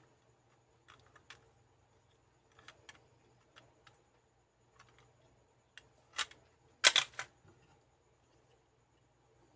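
Hard plastic clicks as a Kyutama toy capsule is handled and turned over in the fingers, with a louder clatter of plastic on plastic about seven seconds in.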